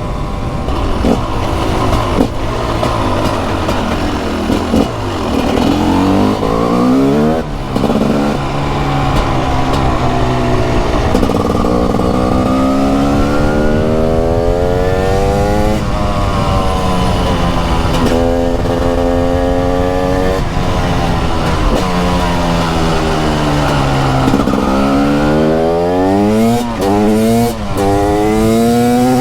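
TM Racing SMR 300 supermoto's 300cc two-stroke engine under riding load. It revs up and falls back again and again as the bike accelerates through the gears and backs off, with sharp pitch drops at the shifts and a hard climb in revs near the end.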